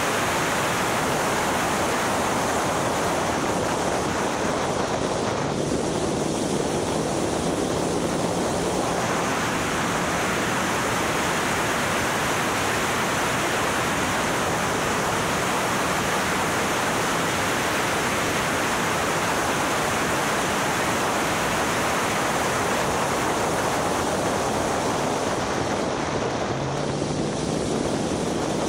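Steady loud rush of wind buffeting the microphone on an open Caterham Seven R300 at track speed, with the car's engine note faintly underneath. The engine comes through a little more twice, where the rush eases, about a fifth of the way in and near the end.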